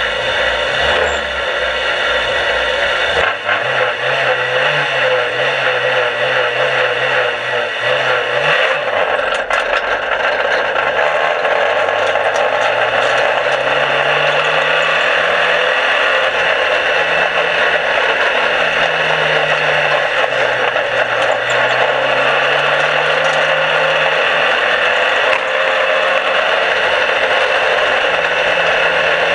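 Onboard sound of a dirt-track race car running hard around the oval, heard from inside the cockpit. A steady loud roar of engine, wind and rattle fills the cab, and the engine note rises as it accelerates and drops as it backs off, several times over.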